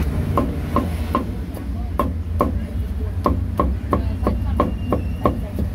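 Cleaver chopping roast meat into slices on a thick wooden chopping block: about fourteen sharp knocks at a steady pace of two to three a second, over a low rumble.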